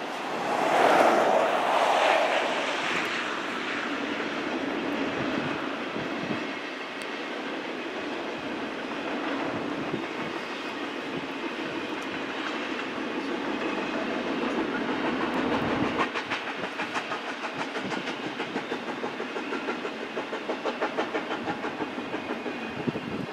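Double-stack intermodal well cars of a long freight train rolling past, steel wheels running on the rails. A louder rush of noise swells in the first few seconds, and from about two-thirds of the way in the wheels clatter in an even clickety-clack rhythm.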